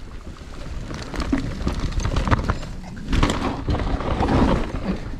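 Mountain bike riding fast down a loose dirt trail: tyres rolling over dirt and roots, with the bike clattering over bumps and wind buffeting the camera microphone as a low rumble. It grows louder from about a second in, busiest over the rough section near the end.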